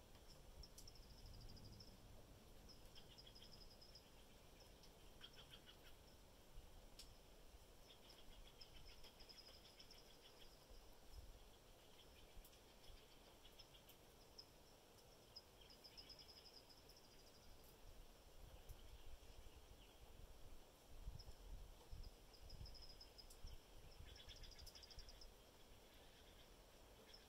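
Quiet forest ambience: short, high trills of small birds repeating every few seconds over a faint, uneven low rumble.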